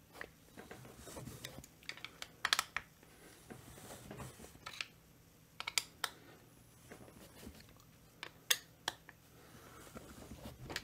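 A hand tool clicking and scraping on screws and the plastic housing of a Stihl 025 chainsaw as the screws are turned. The clicks are light and irregular, with louder taps about two and a half, six and eight and a half seconds in.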